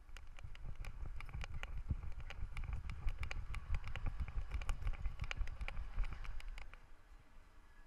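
Harness-mounted GoPro jostling on a trotting miniature schnauzer: quick, uneven clicks and knocks with each stride over a low rumble of the camera shaking, which die down about seven seconds in as the dog slows.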